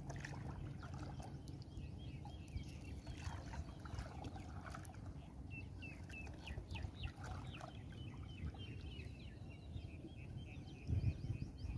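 Birds calling repeatedly with short chirping notes over a steady low rumble of water lapping against a small wooden outrigger canoe. A few louder knocks come near the end.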